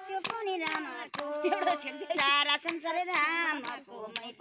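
Voices singing a devotional song (bhajan) in long, drawn-out notes, with hand-clapping keeping time, a few claps a second.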